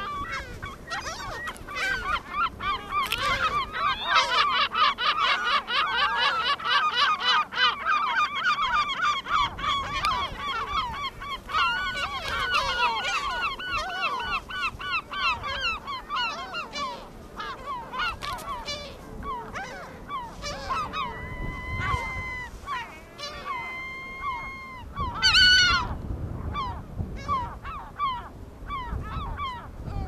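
Gulls calling: a dense, rapid run of short repeated calls for the first half, thinning later to scattered calls and a few longer drawn-out cries, the loudest about three-quarters of the way in.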